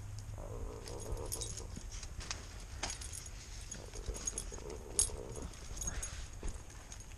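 A dog moving about while being petted, its collar tags jingling and clinking now and then, with one sharper clink about five seconds in.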